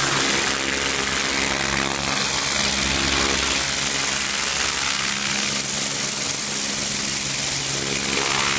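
Pressure washer's engine running steadily, with a constant hiss over its hum.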